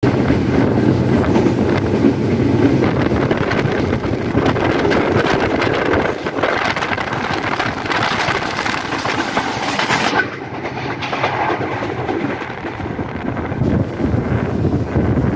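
Intercity passenger train running at speed, heard from aboard a carriage: steady rumble with wheels clattering over the rail joints. The noise thins and dips a little about ten seconds in.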